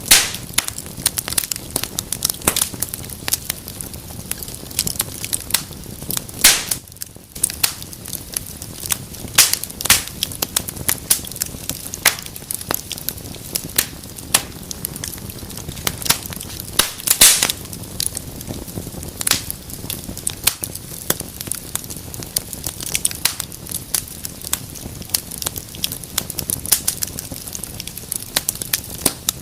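Fire in a fireplace crackling steadily: dense sharp pops and snaps over a soft hiss, with a few louder pops near the start, about six seconds in and about seventeen seconds in.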